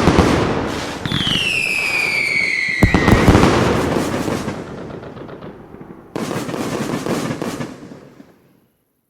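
Fireworks going off: rapid crackling pops, then about a second in a whistle that slides down in pitch and ends in a sharp bang just before three seconds. Another round of crackling starts around six seconds and dies away.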